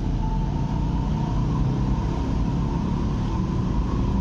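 Steady low rumble of a running motor vehicle, with a faint steady whine above it.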